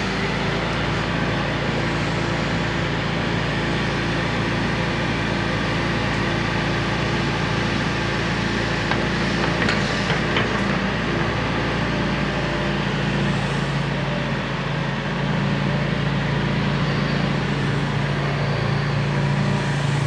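Diesel engine of a Hitachi Zaxis 170W wheeled excavator running steadily while the machine digs and swings its boom. A car drives up along the road near the end.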